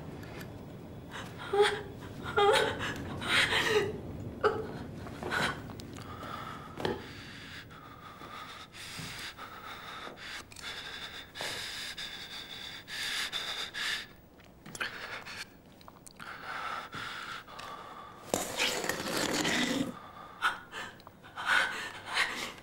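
Heavy, ragged breathing and gasps, with a few short strained voice sounds in the first seconds and a long, loud breath near the end.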